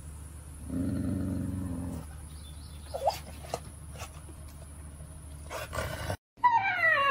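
A dog growls low for about a second, then gives a short whine a second later. Near the end, after a cut, a husky starts a loud, wavering howl.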